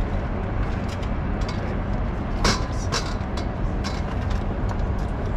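Steady low rumble of street traffic, with a few light knocks and clinks of beer glasses being set down on a wooden picnic table, the sharpest about two and a half seconds in.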